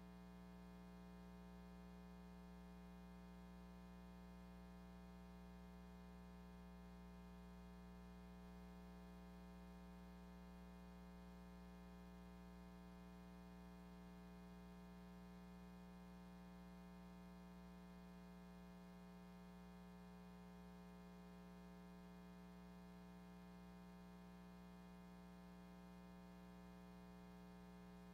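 Near silence with a faint, steady electrical hum made of many overtones, unchanging throughout.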